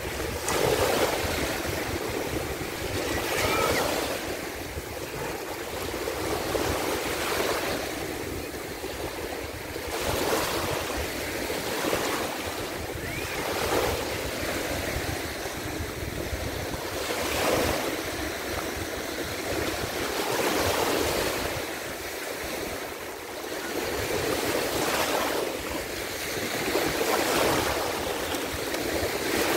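Sea waves washing in, the noise swelling and easing every few seconds.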